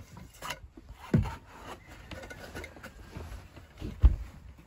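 Rubbing and rustling of a canvas boat top as a telescoping support pole is worked up into its pocket, with two dull thumps, about a second in and a louder one near the end.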